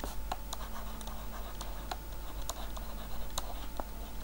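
Stylus tapping and scratching on a tablet screen during handwriting: a string of small, irregular clicks.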